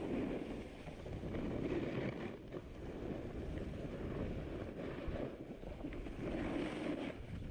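Snowboard sliding over packed snow on a piste, a rushing scrape that swells and fades, with wind buffeting the microphone.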